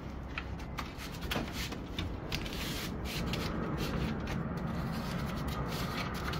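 Rustling and scattered light clicks and snaps of bottle gourd vines being handled, their growing tips pinched off, over a steady low rumble.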